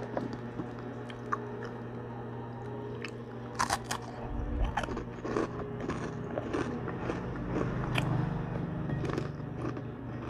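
Close-up crunching of crispy chicharon (deep-fried pork rind) being bitten and chewed, with a few sharp cracks a little over a third of the way in, then steady crunchy chewing. A low steady hum runs underneath.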